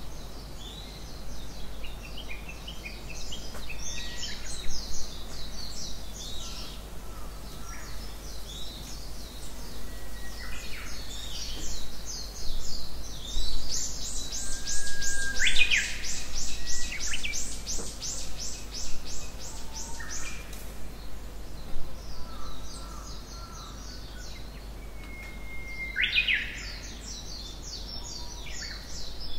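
Several wild birds singing and calling in a forest, overlapping chirps throughout. About halfway through comes a long, rapid trill lasting several seconds, and twice a held whistled note ends in a sharp rising phrase.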